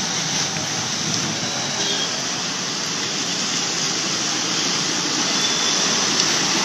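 Heavy rain pouring onto a flooded road: a steady hiss of drops splashing into standing water.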